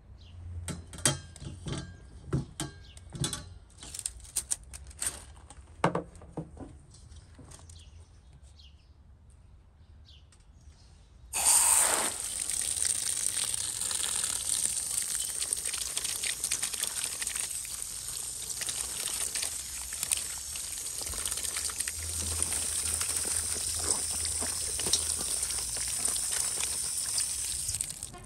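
A run of light knocks and clinks, then about 11 seconds in, water from an outdoor standpipe tap suddenly gushes onto vegetables in a stainless steel colander. It runs steadily, splashing, for the rest of the time.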